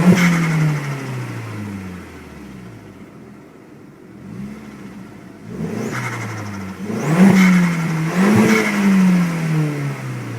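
Turbocharged car engine revved in several blips, the revs rising and falling away each time, with turbo whistle and flutter (compressor surge) as the throttle closes. The strongest revs come at the start and twice in the second half.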